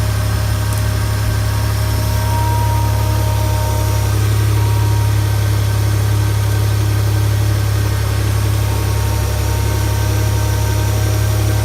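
Nissan VG30DET twin-turbo V6 engine running steadily at idle, with a faint thin whine that comes and goes twice. The owner is trying to capture an abnormal noise in it whose cause he does not know.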